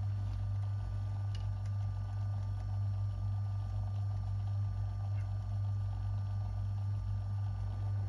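Small metal lathe running steadily, its motor and spinning chuck giving a constant low hum with a faint regular pulse, as a centre drill is fed into the end of the workpiece.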